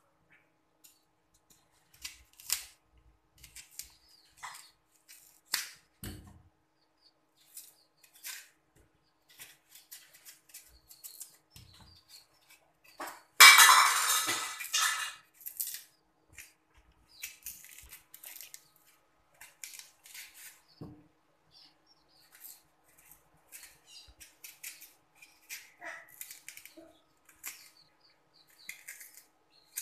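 Kitchen knife cutting and scraping the peel off unripe green bananas over a stainless steel sink: scattered small clicks, scrapes and taps, with one louder noisy burst of about two seconds midway.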